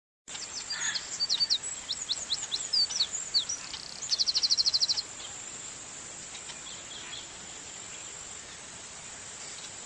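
Birds chirping in quick falling notes, starting suddenly a moment in, then a rapid trill of about ten notes a second lasting about a second. A steady high insect buzz runs underneath and carries on alone after the birds stop.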